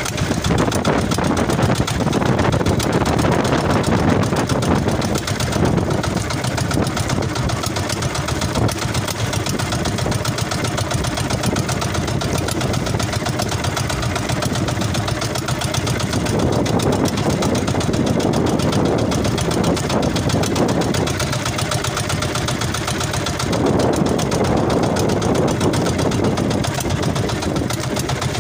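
Engine of a motorized outrigger fishing boat running steadily while the boat is underway.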